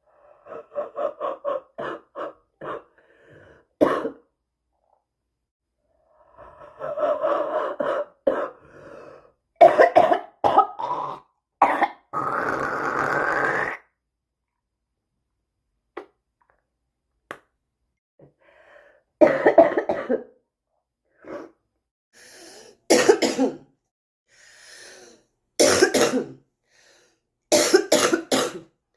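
Smoker's cough: a person coughing in fits of short, rapid coughs, with pauses of a few seconds between fits. About twelve seconds in comes a longer drawn-out sound that rises in pitch.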